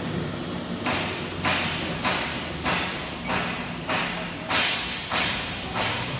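Abrasive belt of an automatic polishing machine grinding a steel dish head: a rasping hiss that swells and fades evenly about every 0.6 s, starting about a second in, over the steady hum of the belt motor.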